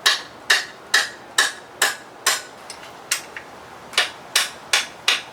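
A rubber mallet striking metal parts of an outboard motor: about a dozen sharp blows at roughly two a second, with a short pause a little past the middle.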